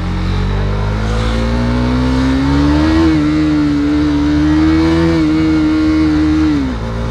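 KTM Duke 390's single-cylinder engine accelerating the motorcycle, its note climbing steadily over the first three seconds, then holding with two slight dips, and dropping away near the end.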